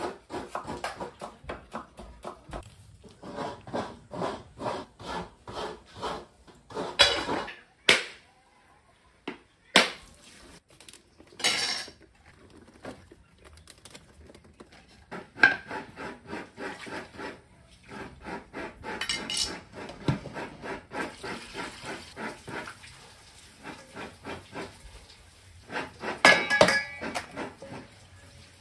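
Kitchen prep sounds: a knife chopping vegetables on a wooden cutting board in quick, even strokes, with bowls and dishes clinking and a few sharp knocks.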